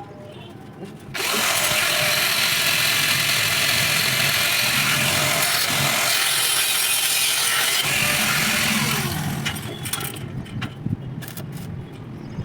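Angle grinder grinding or cutting steel, a loud steady hiss that starts suddenly about a second in and dies away after roughly eight seconds.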